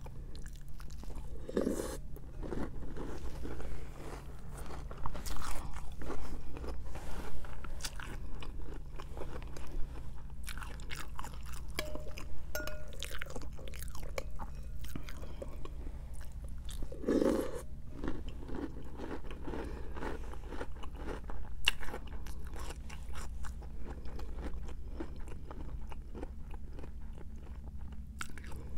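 Close-up crunching and chewing of Cap'n Crunch's Christmas Crunch cereal in milk, in many irregular crackling bites, with a few louder mouth sounds about two seconds in and again past the middle.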